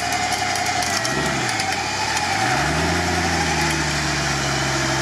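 UAZ 4x4's engine pulling through thick mud. It dips about a second in, then revs up and holds a steady higher pitch.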